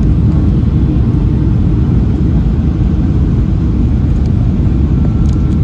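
Steady low rumble inside the cabin of a Boeing 737-800 in flight, from its CFM56-7B engines and the airflow over the fuselage. A faint steady whine comes in near the end.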